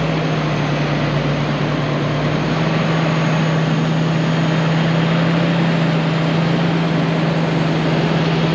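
John Deere tractor's diesel engine running hard at a steady pitch as it pulls on a tow strap to free a tractor stuck in mud, heard close up from its hood. The revs step up slightly at the start and then hold.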